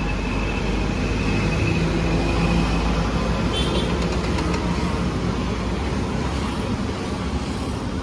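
Road traffic running past an open-air street food stall, with one vehicle engine going by and peaking about two and a half seconds in, over the steady hiss of oil heating in a hot pan.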